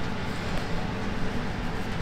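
Steady low background rumble with a faint hum running under it; no distinct knocks or clicks.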